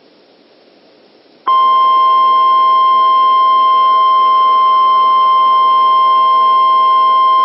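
Emergency Alert System attention tone: a loud, steady single-pitched alarm tone that starts abruptly about a second and a half in, after faint radio hiss, signalling that an emergency warning message follows.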